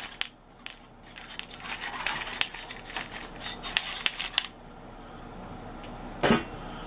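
Bristle-free coiled-steel wire grill brush scraped back and forth over a wire oven rack to clean off burnt-on grease, giving rapid metallic scratching and clicking that stops about four and a half seconds in. A single short thump comes near the end.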